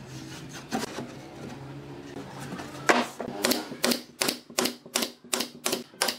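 Pneumatic brad nailer firing a quick run of about ten sharp shots, roughly three a second, starting about three seconds in, driving nails through a plywood panel into pine boards.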